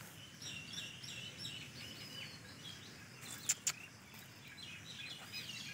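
Small birds chirping: a busy string of short, high chirps and calls, faint and steady throughout. Two sharp clicks come about three and a half seconds in.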